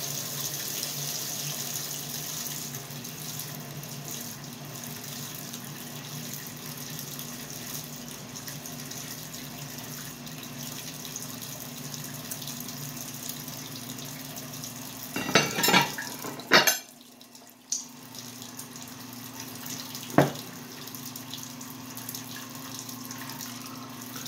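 Dishwasher running, a steady hiss of spraying water over a low hum. About two-thirds of the way through come a few loud clatters, ceramic plates being set down and stacked, and a single sharp knock a few seconds later.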